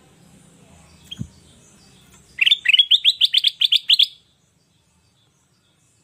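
Caged kutilang emas (a yellow bulbul) calling: a quick run of about ten rising notes lasting under two seconds, starting about two and a half seconds in. A single soft knock comes a second in.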